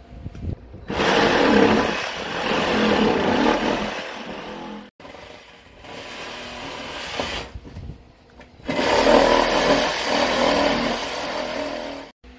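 Reciprocating saw cutting a round hole through a plywood subfloor, running in two loud spells of a few seconds each with a quieter stretch between.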